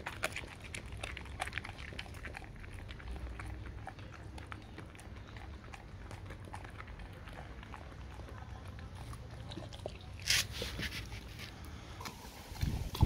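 A dog chewing and crunching a raw gilt-head bream, with short wet crunches of fish flesh and bone, thickest in the first few seconds and then sparser, and one louder crunch about ten seconds in.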